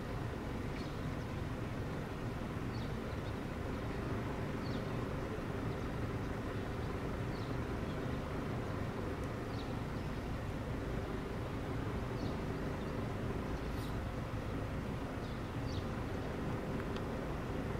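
Steady low rumble of a 381 series limited express electric train running toward the station from a distance, with faint short high chirps every second or two.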